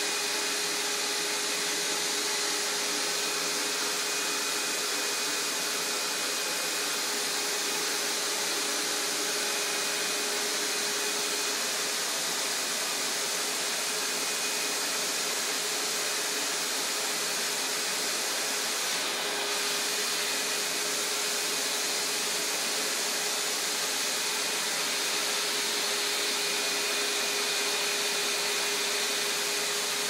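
Vacuum cleaner running steadily: an even rushing noise at a constant level, with a steady hum and a faint high whine in it.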